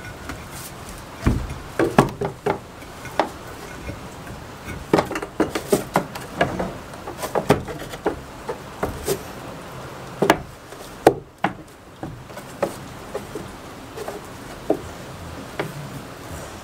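Goat hooves knocking and scraping on wooden boards as a goat clambers onto a plank shelf and shifts about on it: irregular sharp knocks, thickest in the first half, fewer near the end. A steady hiss of rain runs underneath.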